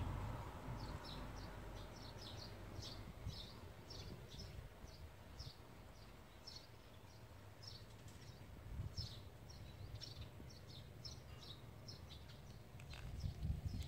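Small birds chirping: short, high chirps several times a second throughout. A low rumble swells near the end.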